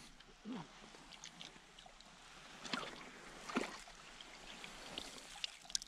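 Faint splashing and trickling of water, with a few short splashes about halfway through.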